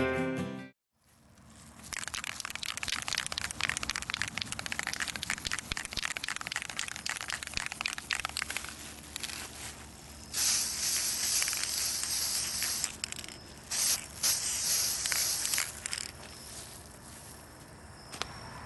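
Krylon aerosol spray paint can shaken, its mixing ball rattling fast for several seconds. It is then sprayed in hissing bursts: a long one about halfway through, then a brief one and another of about two seconds.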